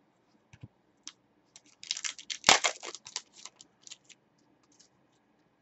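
Hands handling trading cards and a foil pack wrapper: a flurry of quick clicks and crinkles between about one and a half and three seconds in, with scattered faint clicks around it.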